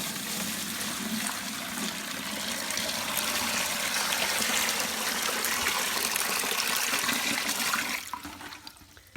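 Water pouring into a bucket in a steady rush, tailing off to a trickle and stopping near the end.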